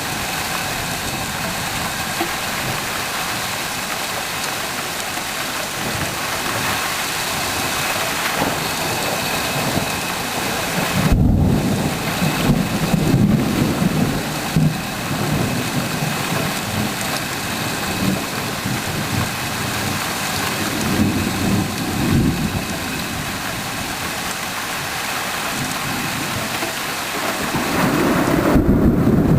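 Steady rain falling, with rolls of thunder rumbling over it: a long rumble starting about eleven seconds in, weaker ones around twenty seconds, and another building near the end.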